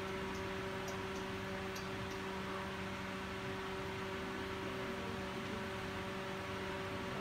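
A steady low hum over constant hiss, with a few faint ticks in the first two seconds.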